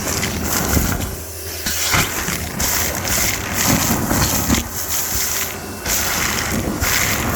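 Car wash vacuum running, a steady low hum under the rushing of air through the hose, which comes in uneven surges.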